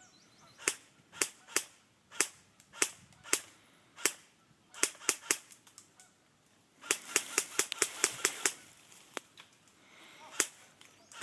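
Airsoft guns firing: a string of single sharp pops about half a second apart, then a fast rapid-fire burst about seven seconds in, then a few more single shots.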